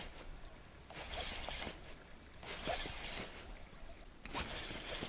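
Spinning reel cranked in three short bursts of a few turns each, with pauses of about a second between: a step-style jig retrieve.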